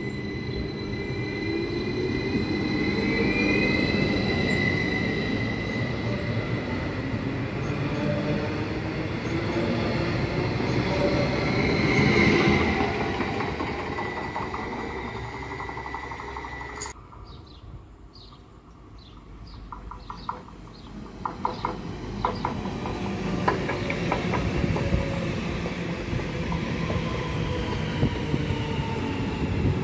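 Train running on the rails: a steady rumble of wheels on track with a thin, high squeal from the wheels. About halfway through the sound drops off suddenly, then builds again with a quick run of clicks as the wheels pass over rail joints or points.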